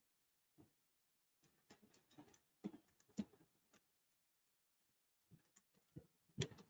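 Computer keyboard being typed on: faint quick key clicks in two short bursts, the second near the end.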